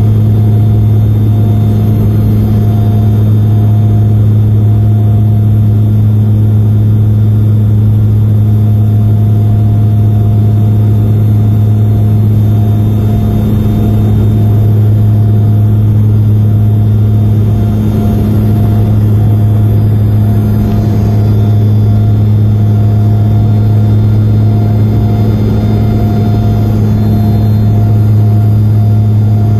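Airliner engines droning in the cabin on the landing approach: a loud, steady drone with a strong low hum that does not change.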